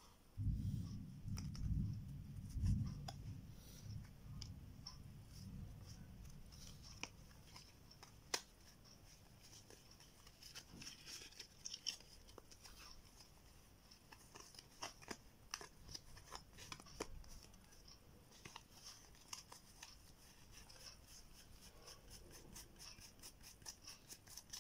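A new deck of DOS playing cards being handled and fanned through by hand: many small clicks and the rustle of card stock. There are dull handling bumps in the first few seconds.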